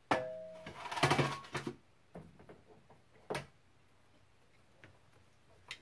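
Craft tools being picked up and set down on a table: a knock with a short ringing tone at the start, about a second of clatter, then single clicks about three seconds in and again near the end.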